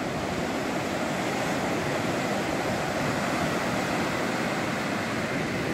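Sea surf: small waves breaking and washing up a sandy beach, a steady rush of water.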